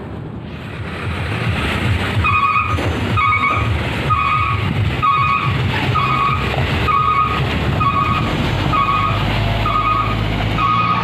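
Heavy truck engine running, with a repeating electronic beep, about one short tone a second, starting about two seconds in.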